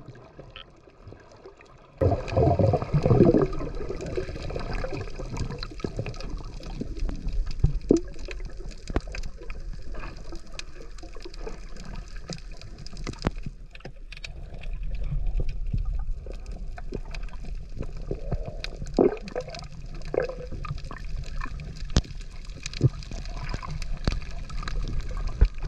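Underwater sound from a camera below the surface with swimming divers: a low wash of water with irregular short bursts and scattered clicks, starting suddenly about two seconds in.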